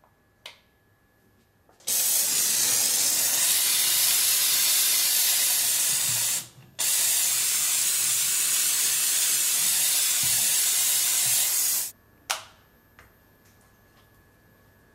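Kärcher SC 4100 C steam cleaner releasing a loud, steady hiss of steam for about ten seconds, with a brief break partway through. There is a sharp click just before the steam starts and another just after it stops.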